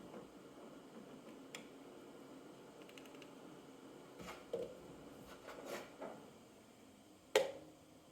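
Faint, scattered knocks and clinks of glass canning jars being handled, with a quick run of small clicks about three seconds in and one sharper, ringing clink about seven seconds in.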